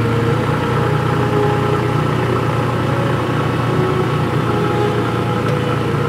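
4x4 truck engine idling steadily.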